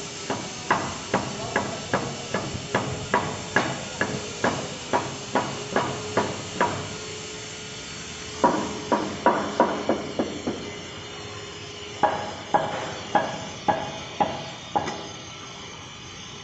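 Mallet blows tapping a granite slab into place, about two knocks a second in three runs separated by short pauses.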